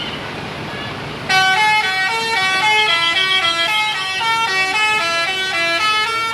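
Indonesian 'telolet' bus horn, a multi-tone musical air horn, playing a quick tune of stepped notes. It starts about a second in over traffic noise.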